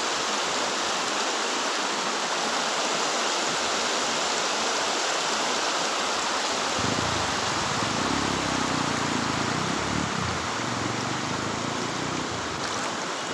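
Floodwater rushing steadily over a road, a constant hiss of flowing water; a low rumble joins in about seven seconds in.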